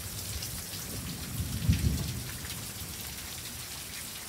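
Steady rain falling, with scattered drops ticking close by. A brief low thump comes about a second and a half in.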